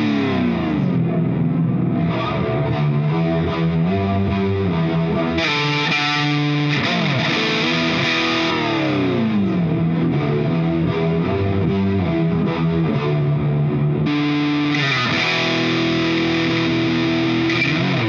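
Distorted electric guitar through a GTC REVPAD multi-effects unit's 'Diver' pitch effect: the played notes slide downward in pitch several times, in long dives.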